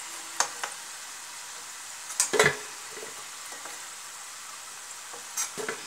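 Oil sizzling steadily as suji gujiya deep-fry in a pan, with a steel slotted spatula knocking against the pan a few times as fried gujiya are lifted out; the loudest knocks come about two and a half seconds in.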